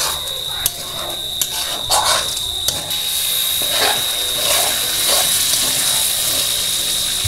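A spoon knocking and scraping in a pan of curry, then a hiss of sizzling from about three seconds in as liquid is poured from a pot into the hot pan. A steady high-pitched tone runs underneath.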